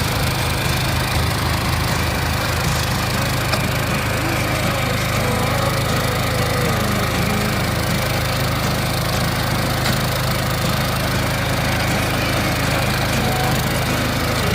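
Walk-behind cultivator's small engine running steadily with an even drone while it works the soil.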